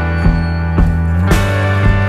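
Background music with guitar and a steady drum beat, about two beats a second.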